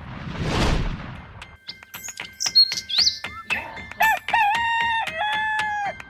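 A whoosh, then a rooster crowing once, a long call of about two seconds that steps down in pitch near its end. Under it runs light music with a steady ticking beat and a few short high chirps.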